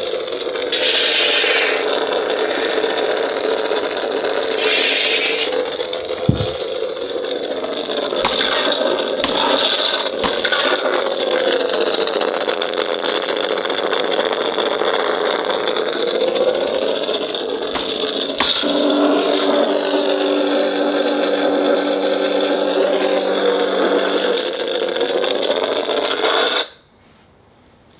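Sound board of a Black Series crossguard lightsaber playing its rough, noisy hum, with swooshing rises and falls in pitch as it is swung and a few sharp clash hits. The sound cuts off suddenly near the end.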